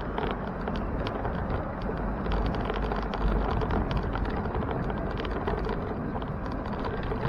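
Wind buffeting and road noise from riding a bicycle: a steady low rumble with tyre hiss, broken by many small clicks and rattles.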